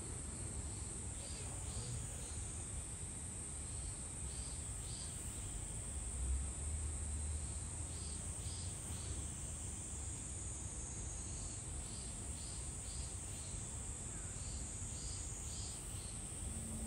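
Steady high insect buzzing, with short chirps in groups of three or four recurring every few seconds, over a low hum.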